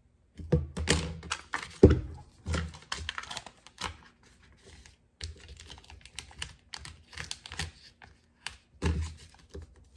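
Irregular crinkles, taps and small scrapes of vinyl decal transfer paper being handled and its backing peeled away on a worktable, with a single heavier thump about two seconds in.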